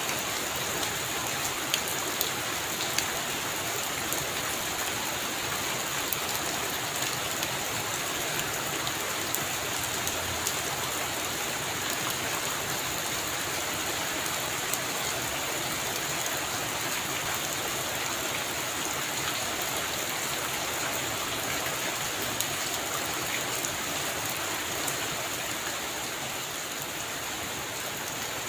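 Heavy rain falling steadily, a dense even hiss with many individual drops ticking sharply through it.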